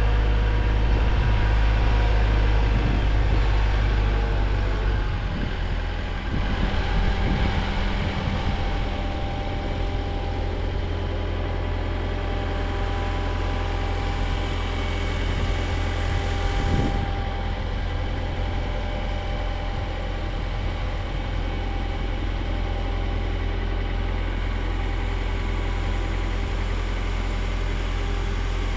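An engine running steadily at low revs, its note changing slightly about five seconds in.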